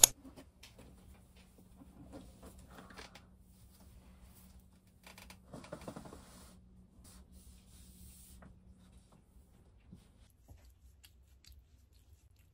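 A sharp knock at the very start, then faint rustling and handling noises in two short spells, about two and six seconds in, over a faint steady low hum.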